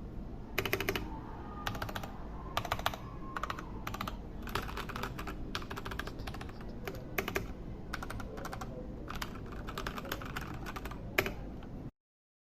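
Typing on a Keycool KC84 mechanical keyboard with Gateron Red linear switches: quick runs of keystroke clacks with short pauses between them, over a low steady hum. The sound cuts off abruptly just before the end.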